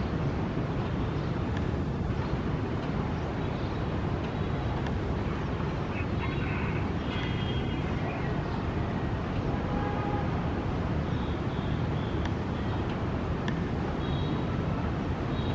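Steady low outdoor rumble that holds an even level throughout, with a few faint, short high-pitched tones about halfway through and again near the end.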